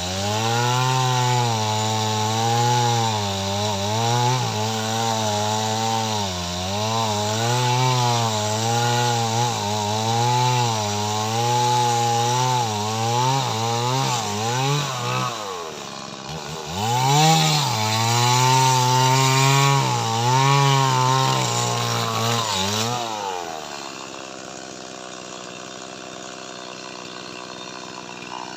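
Small Stihl two-stroke chainsaw cutting lamtoro wood, its engine speed rising and falling about once a second as the chain bites into the log. About 23 seconds in the throttle is released and the saw drops to a steady, quieter idle.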